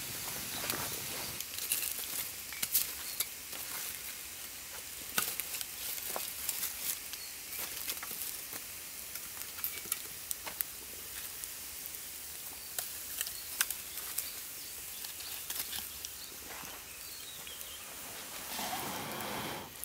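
Split-log wood fire crackling, with scattered sharp pops over a steady hiss. A louder rushing noise comes in near the end.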